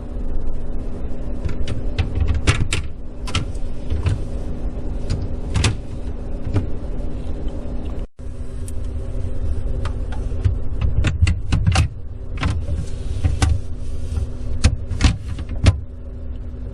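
Refrigerator shelf being handled and fitted into the fridge compartment: scattered clicks and knocks of the shelf against its supports, over a steady low hum. The sound breaks off for a moment about eight seconds in.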